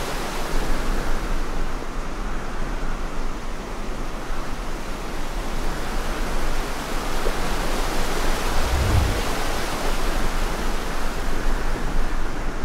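Steady rushing of a shallow creek's flowing water and small cascades, an even hiss with no pitch to it, with a brief low thump about nine seconds in.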